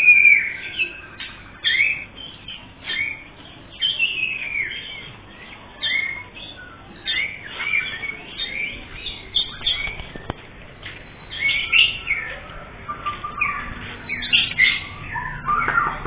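Caged songbirds chirping and whistling: a busy, continuous string of short high chirps and whistles, some sliding up or down in pitch.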